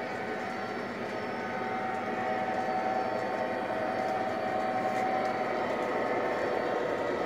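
O gauge model train running on the layout track: a steady rumble of wheels on rail with an electric motor hum, growing a little louder about two seconds in.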